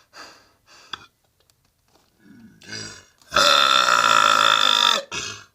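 A man burping: one long, loud burp lasting about a second and a half, starting a little past the middle, after a few faint short sounds.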